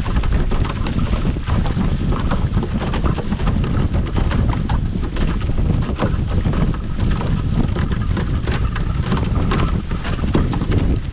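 Wind buffeting the microphone over the rush of water along a Class A catamaran's hull, sailing at about 11 to 13 knots. The hull slaps and splashes through the chop many times.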